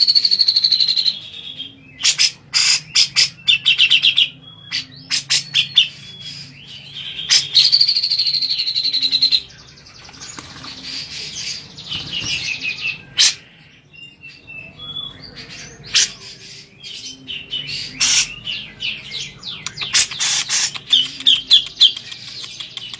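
Cucak jenggot (grey-cheeked bulbul) calling loudly in bursts of sharp chirps, with two long trills: one at the start and one about seven seconds in.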